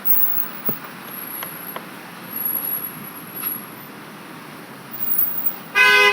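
Recorded street-ambience sound effect: steady traffic noise with a few faint clicks, then a car horn honks loudly near the end.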